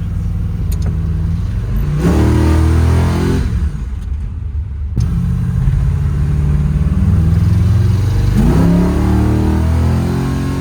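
Holden HQ engine with new heads and a different intake, accelerating hard. The revs climb about two seconds in, drop off briefly around four seconds in as for a gear change, then pull and climb again near the end. Sounds like it "makes all the right noises".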